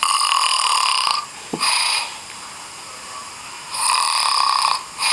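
A little boy snoring in his sleep: two breaths, each a long hissing snore of about a second followed by a shorter one.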